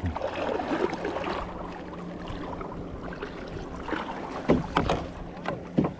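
Water washing around a kayak at sea with wind on the microphone, and three short sharp splashes near the end.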